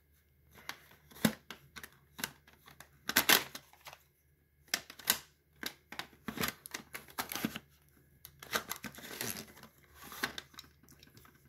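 Plastic cassette cases being handled and sorted through: an irregular run of clicks, clacks and short scrapes, with a few sharper knocks about three and five seconds in.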